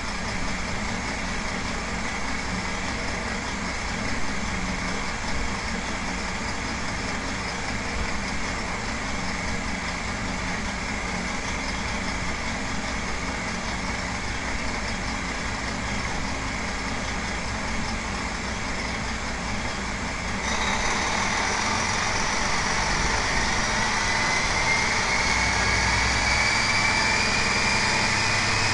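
Detroit Diesel Series 60 straight-six turbo-diesel idling steadily on an engine dynamometer. About two-thirds of the way through it gets louder as the throttle opens, and the engine speed climbs with a rising whine.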